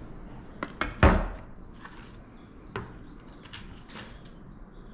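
Propeller parts being handled during assembly: a sharp knock about a second in, then scattered light clicks and taps as the third blade and the metal hub pieces are picked up and set against each other.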